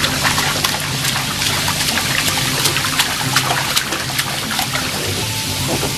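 Water hissing steadily from a hand-held hose spray nozzle into an inflatable paddling pool. Splashes and spatters crackle through it as a baby slaps at the water.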